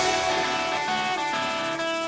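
Rock song in a quiet passage: the full band drops out and an electric guitar plays ringing, sustained notes on its own, with no drums or bass, changing notes a couple of times.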